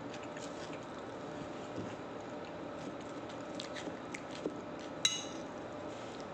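Metal cutlery tapping and scraping on a ceramic plate while eating an omelette, with small clicks and one sharp ringing clink about five seconds in, over a steady background hum.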